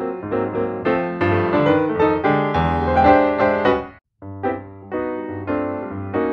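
Background piano music playing a run of quick notes. It cuts out completely for a moment about four seconds in, then resumes.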